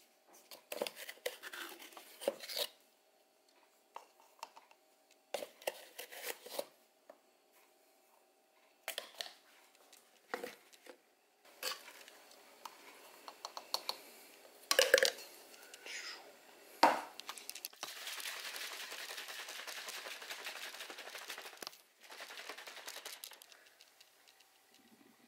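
Things being handled: scattered knocks, clicks and rustles of containers and packaging, with a sharp knock a little before 15 s and another at about 17 s. A steady hiss lasts about four seconds from about 18 s in.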